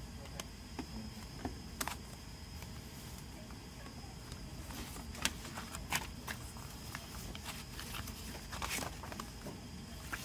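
Hands handling a plastic CD jewel case and its paper booklet: scattered light clicks and taps, with a short paper rustle near the end, over a steady low background noise.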